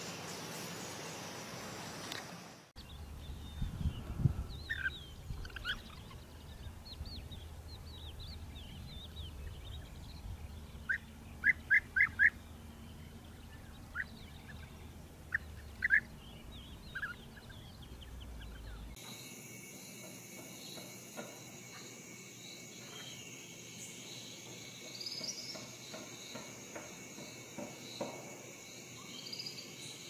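Wild birds calling in short, clipped chirps, some single and some in quick runs of three or four. In the last third a steady high insect buzz takes over, with a few more scattered bird calls.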